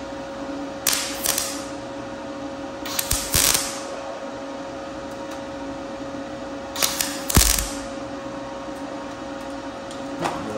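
MIG welder tack-welding a steel flare onto a steel car fender: about four short bursts, each under a second, a few seconds apart.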